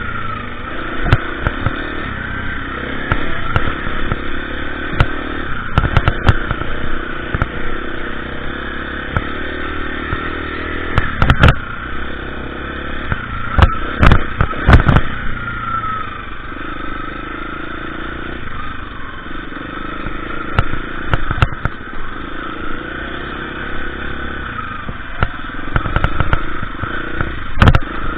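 KTM EXC 350 dirt bike engine running under riding load, the revs rising and falling with throttle and gear changes. Sharp knocks and clatter come every so often, the loudest a little before and around the middle.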